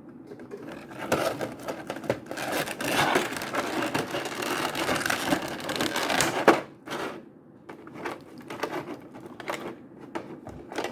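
Cardboard toy box and plastic packaging being opened and handled: dense crinkling and rustling for several seconds, a sharp snap about six and a half seconds in, then lighter scattered handling clicks.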